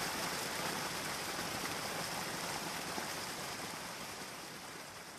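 Recorded rain: a steady hiss of falling rain, slowly fading out.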